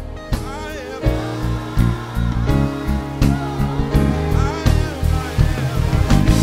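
Live worship band music: a drum kit played with regular hits and cymbal crashes under other instruments, with a voice singing over it.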